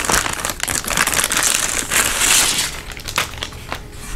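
Clear plastic bag crinkling and crackling as it is pulled off a flat TV antenna panel, dying down a little after three seconds in.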